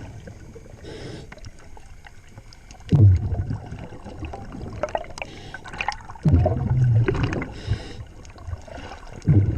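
Scuba diver breathing through a regulator underwater: three gurgling rushes of exhaled bubbles about three seconds apart, with fainter inhale hisses and small clicks and crackles between them.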